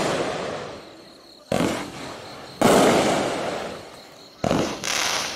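A Pyro Demon 'Flying High' 500-gram, 21-shot consumer firework cake firing. Four sharp bangs come at uneven intervals, each trailing off in a long fading rumble.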